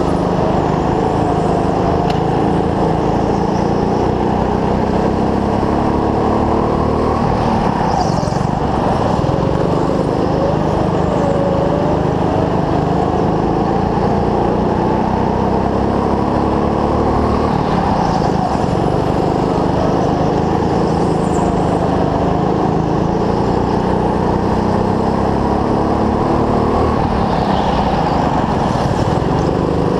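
Small go-kart engine heard from onboard at racing speed, its revs rising and falling again and again through the corners.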